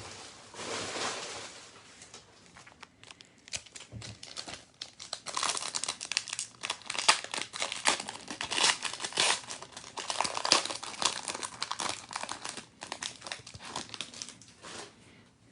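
Foil wrapper of a wrestling trading-card pack crinkling as it is torn open by hand: irregular crackling, picking up about five seconds in.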